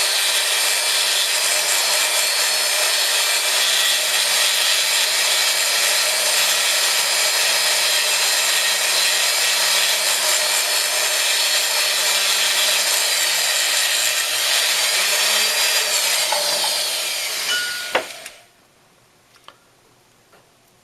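Rotary burr cutting a stone seat into the gold prongs of a ring: a steady grinding whir with the motor's hum dipping and picking back up near the end. It stops abruptly with a click, leaving a few faint ticks.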